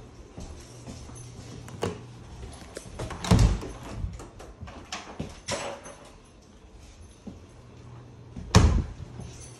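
An interior closet door being swung open and shut, with knocks and two heavy thumps, the first about three and a half seconds in and the loudest near the end, over a low steady hum.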